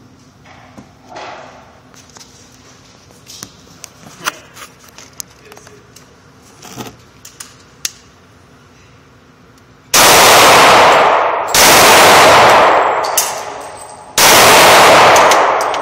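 Handgun fire at an indoor range: after some faint scattered clicks, three very loud blasts come about ten seconds in, again a second and a half later, and near the end. Each is drawn out by the echo of the range.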